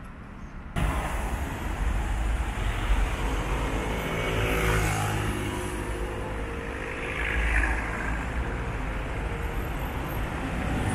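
Road traffic noise: a steady low rumble of engines and tyres that cuts in sharply about a second in, swelling as vehicles pass close by, about four seconds in and again nearer eight seconds.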